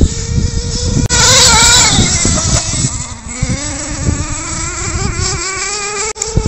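HPI Bullet MT 3.0's small nitro two-stroke glow engine running as the truck drives, a high buzzing whine whose pitch wavers and slowly climbs. A loud rush of hiss covers it for almost a second, about a second in.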